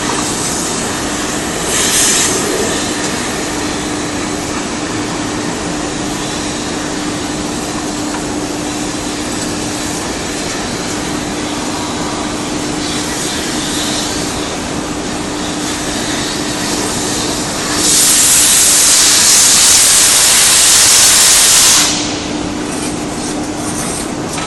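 Compressed-air lance blasting with a loud hiss for about four seconds in the second half, cutting off suddenly, with a shorter hiss about two seconds in. Under it a steady industrial roar with a constant low hum.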